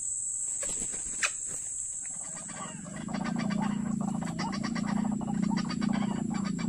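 White-breasted waterhen calling: a loud, rapidly pulsed croaking series that starts about two to three seconds in and keeps going. It sounds over a steady high-pitched insect drone.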